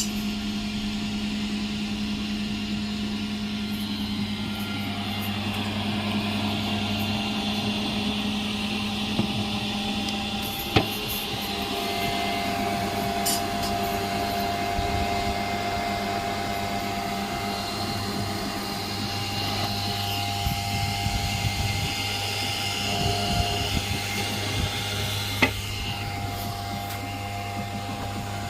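A steady low machine hum with fainter high whining tones over it, broken by two sharp clicks, one about eleven seconds in and one near the end.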